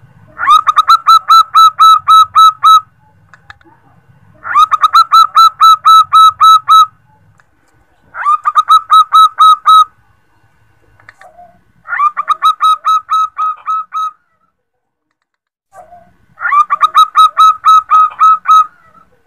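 Female zebra dove (perkutut) calling to a male: five bouts of rapid, staccato cooing notes, each about two seconds long, a couple of seconds apart.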